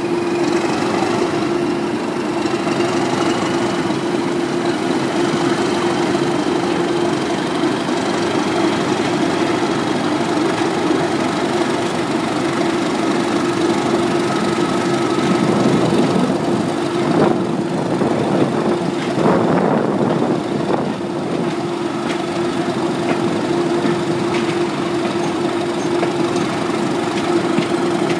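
Class 37 diesel locomotive's English Electric V12 engine running steadily, heard close up from the cab, with a constant droning note under the engine's clatter.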